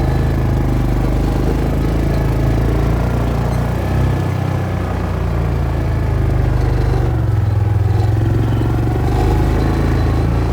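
A vehicle engine running steadily, with a loud low hum.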